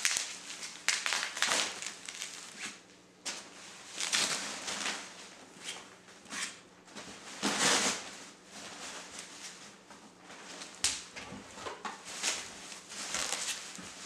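Bubble wrap and plastic packing rustling and crinkling as parts are pulled out of a cardboard box, with scattered sharp clicks and light knocks.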